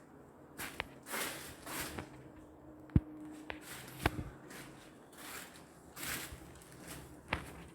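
Footsteps and shuffling scuffs, with a few sharp knocks.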